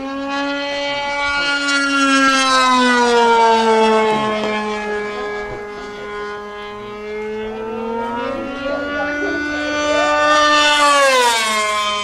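Small engine of an R/C model airplane in flight, running at high revs with a steady whine that swells and fades and drifts in pitch as the plane circles. Near the end it gets loudest and then drops quickly in pitch as the plane passes close by.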